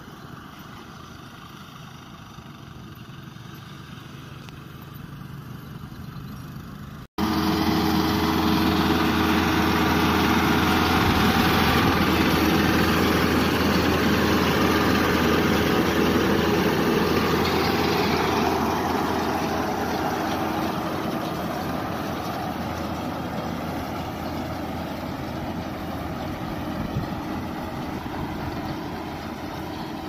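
Rural King RK55 tractor's diesel engine running steadily under load as it pulls a Case 3450 round baler picking up hay. It is faint at first, turns suddenly loud and close about seven seconds in, then slowly fades as it moves away.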